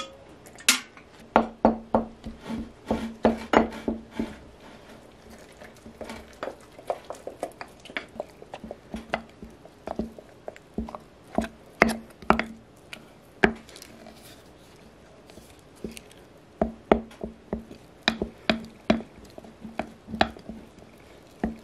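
Wooden spoon stirring a thick batter in a glass jar, knocking and scraping against the glass in quick, irregular clicks.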